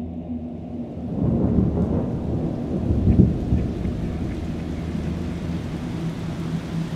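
Thunder rumbling over steady rain, swelling about a second in and peaking around three seconds before settling. A low steady drone runs underneath.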